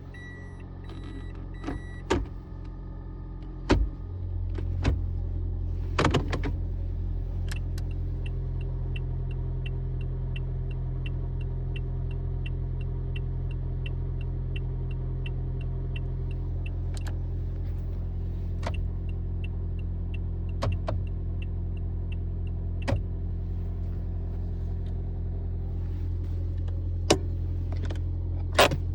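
Toyota Aqua hybrid's 1.5-litre four-cylinder petrol engine starts about four seconds in and then runs steadily. Scattered sharp clicks and a run of quick, regular ticks near the middle sound over it.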